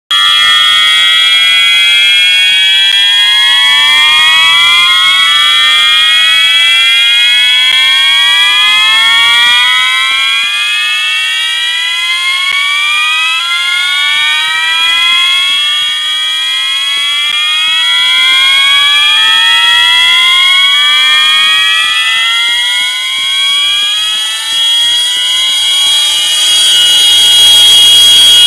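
Fire alarm horns sounding the slow whoop tone, switching on abruptly: a repeated slow rising sweep from several horns out of step with one another, over a steady high-pitched tone.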